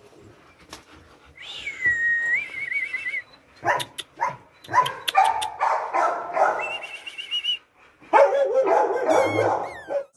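Dog whining and barking: a thin, wavering whine about a second and a half in, then two loud runs of whines, yelps and barks, one from about four seconds in and one near the end.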